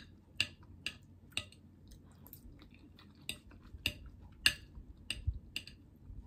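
Close-miked eating: a person chewing, with a dozen or so short, sharp mouth and cutlery clicks at irregular intervals.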